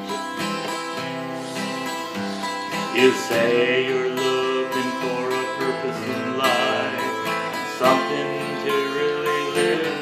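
Acoustic guitar strumming the instrumental introduction of a song, with a wavering melody line over the chords.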